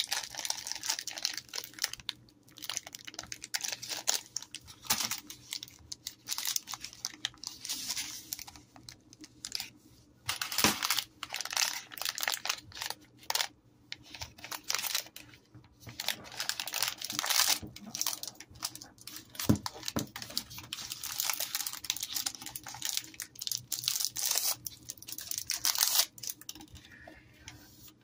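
Crinkling and crackling of plastic fruit-snack wrappers (a Gushers pouch and a Fruit by the Foot pouch) handled and turned over by hands in disposable plastic gloves. It comes in irregular bursts with short pauses between them.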